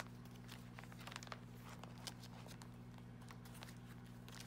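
Faint, scattered light clicks and rustles of paper photo cards and plastic binder sleeves being handled, over a steady low hum.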